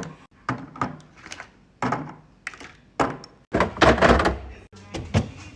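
Groceries and containers being handled and set down in a refrigerator: a series of sharp knocks and thuds, with a louder stretch of clattering about three and a half seconds in.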